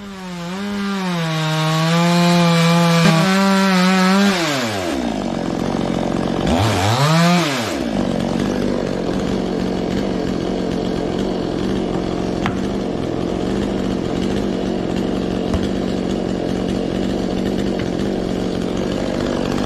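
Two-stroke chainsaw cutting through coconut trunk wood at high revs, its pitch wavering under load for about four seconds. The revs then drop, are blipped once, and the saw runs on steadily at a lower speed.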